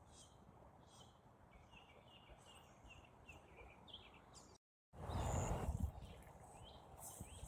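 Small birds chirping: a run of short, quick calls repeated every fraction of a second over a faint background hiss. After a brief dropout about two-thirds through, a louder low rumble comes in with more high bird calls.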